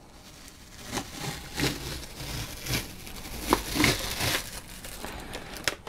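Masking tape being peeled off the deck of a freshly painted engine block and crinkling in the hand, in irregular short rips and rustles, the loudest a little past the middle.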